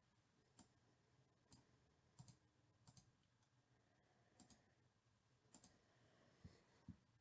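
Near silence with faint clicks about once a second from a computer keyboard and mouse.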